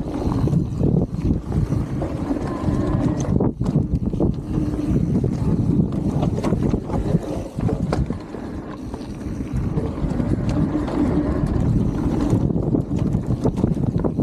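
Mountain bike rolling fast down a dirt trail: wind rushing over the microphone, tyres rumbling on the dirt, and the bike clattering over bumps.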